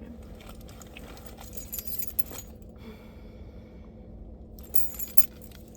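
A bunch of keys jangling and clinking as they are handled, in two short spells about two seconds in and again about five seconds in, over a steady low hum.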